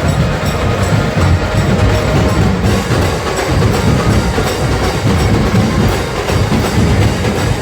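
Loud, dense rhythmic drumming of a street procession band, beating continuously at a fast clattering pulse.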